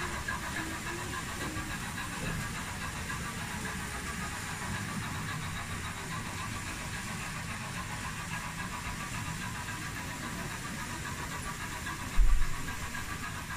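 Märklin electric model trains running on the layout's track: a steady whir and rattle of small motors and wheels. A single low thump near the end.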